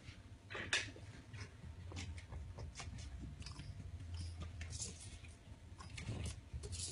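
Kittens moving and nosing right at the microphone: irregular soft clicks and scuffs over a low hum.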